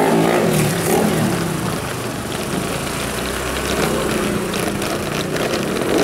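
A vehicle engine running at a steady pitch under general street noise.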